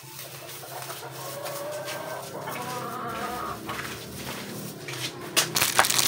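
A chicken clucking in wavering calls for the first few seconds. Near the end come loud crinkling rustles of thin plastic food-prep gloves being worked onto the hands.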